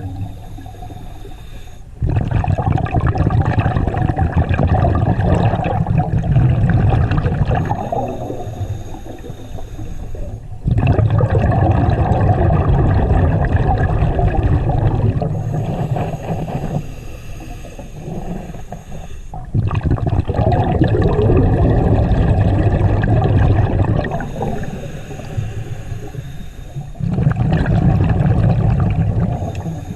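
Scuba diver breathing through a regulator underwater: four long exhales of bubbles gurgling and rumbling past the camera, each a few seconds long, with a quieter hissing inhale between them.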